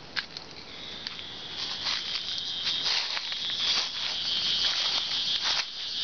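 A steady, high-pitched insect drone starts about a second in and grows louder, over crunching footsteps on dry leaf litter and twigs.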